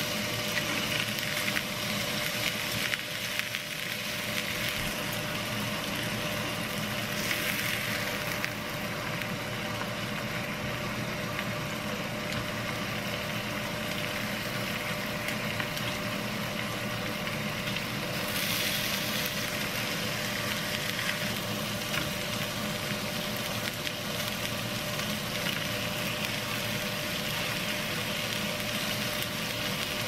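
Hanwoo beef steak sizzling steadily as it sears in a small rectangular pan over a gas burner, with brief louder spells of hissing about a third of the way in and again past the middle.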